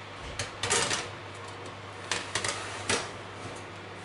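A metal baking tray being pushed into an oven: a handful of short metallic clanks and knocks as the tray meets the oven rack and door, a few scattered through the first three seconds.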